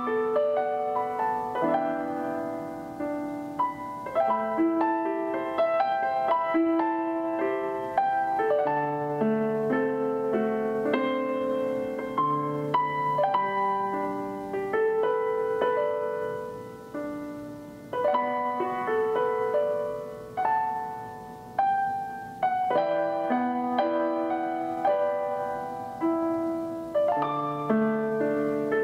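Background piano music: a gentle melody of single struck notes and soft chords.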